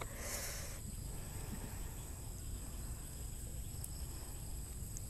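Quiet outdoor ambience: a steady low wind rumble on the microphone and a faint steady high-pitched insect hum, with a short rustle in the first second and a few faint ticks as food is handled.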